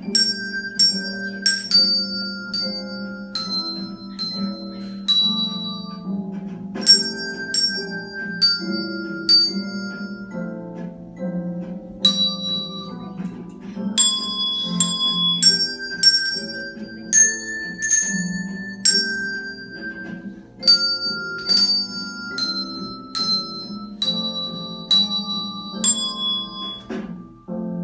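Hand bells played by a class ringing out a slow melody one note at a time, each note struck and left to ring, about one or two notes a second. Lower sustained notes sound underneath.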